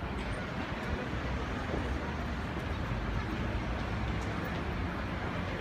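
Steady street traffic noise, a continuous low rumble of vehicle engines and tyres.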